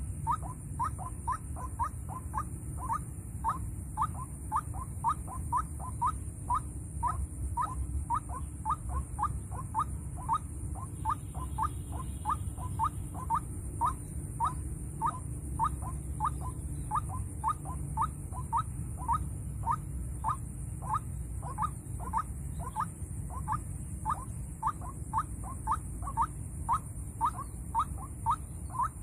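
White-breasted waterhen calling: a long, even run of short, clipped notes, about two a second, over a steady low rumble.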